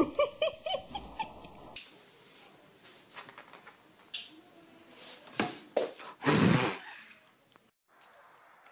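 A kitten mewing in a quick series of short calls. After an abrupt cut come a few knocks, and about six seconds in a louder half-second burst of rustling noise, the kind a cat makes jumping and landing on a bed.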